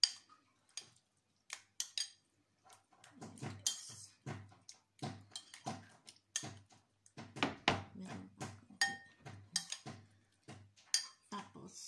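A spoon stirring and scraping a soft butter-and-garlic sauce in a ceramic bowl, with quick irregular clinks and scrapes against the bowl's sides.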